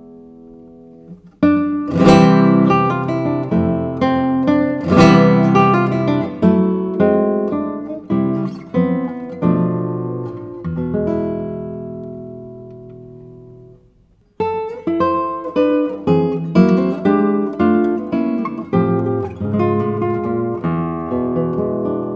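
Solo instrumental music on an acoustic string instrument, picked notes and chords. The playing fades out about ten seconds in, then starts again a few seconds later.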